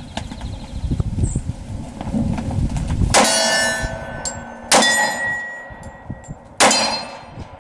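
Three shots from a Glock 27 pistol in .40 S&W, the first about three seconds in and the others roughly one and a half to two seconds apart. Each shot is followed by steel targets ringing.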